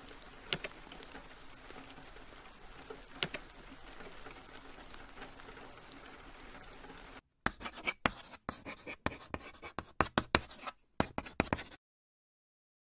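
Faint steady rain sound with a few sharp drop-like clicks. About seven seconds in it changes to a run of irregular sharp clicks and scratches with dead gaps between them, then cuts off to silence.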